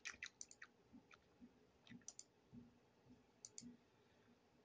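Faint computer mouse clicks, several coming as quick press-and-release pairs, with a few soft low thumps between them.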